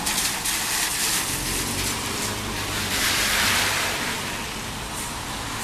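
Steady rushing outdoor noise that swells and fades about three seconds in.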